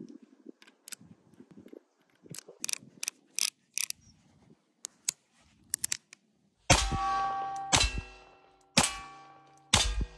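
Nagant M1895 revolver: sharp metallic clicks as its action and cylinder are worked by hand. About two-thirds of the way through come four loud shots, roughly a second apart, each followed by a ringing tail.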